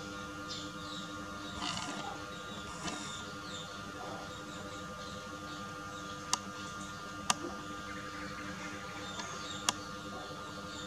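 Small birds chirping faintly in the background over a steady hum. Three sharp clicks stand out, the first about six seconds in and the last near the end.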